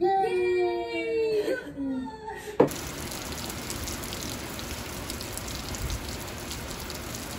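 A drawn-out, wailing cry that falls in pitch for about two seconds, then, after a sharp change, steady rain falling.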